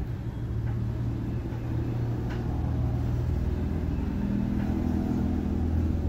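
An engine running steadily: a low hum that grows a little louder and deeper about four seconds in.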